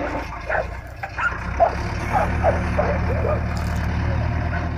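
John Deere backhoe loader's diesel engine running under load as its front bucket pushes dry dirt, the engine growing a little louder about two seconds in. A dog barks repeatedly over the engine.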